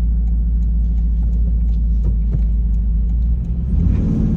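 Inside the cab of a 4Runner running a supercharged Tundra 5.7 L V8 on 40-inch tires: a steady, loud low rumble of engine and road noise. The engine note changes about three and a half seconds in, with a slight rise in pitch.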